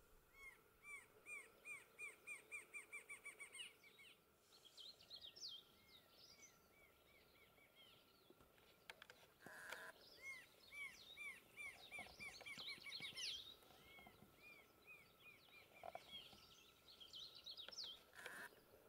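Rufous-winged antshrike singing: accelerating series of short, arched notes, one about a second in, another around ten seconds in and a shorter one near the end. Higher, jumbled chirping notes come between the first two series.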